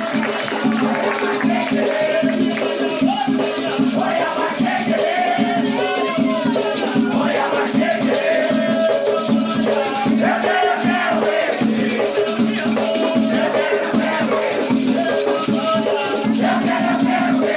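Batuque ritual music: rattles shaken in a steady, fast rhythm with voices singing over them.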